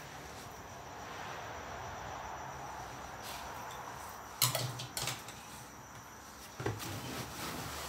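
A few sharp knocks and clatters about halfway through and a couple more near the end, over a steady background hiss.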